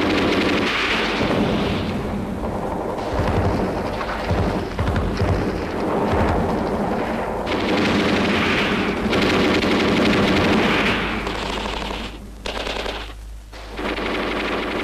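Film battle soundtrack: sustained machine-gun and rifle fire, dense and rapid, easing briefly twice near the end.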